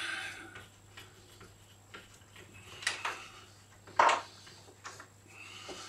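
Wooden clunks and scrapes from the tilting table of a small homemade MDF disc sander as it is adjusted: a short scrape at the start, a click about three seconds in, and a sharp knock about four seconds in, the loudest.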